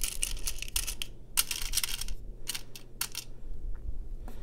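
Small metal charms and jewelry findings clinking and rattling in a clear plastic compartment organizer as a hand picks through them: a quick, irregular run of light clicks in clusters that thin out near the end.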